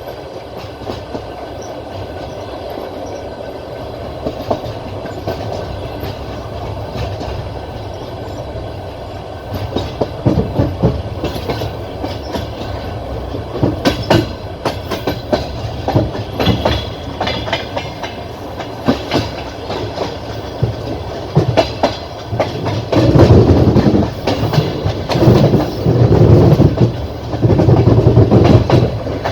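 Passenger train's wheels running over the rails, heard from a carriage window: a steady rumble at first, then irregular clacks and knocks from about ten seconds in, growing into louder, heavier clattering for the last few seconds.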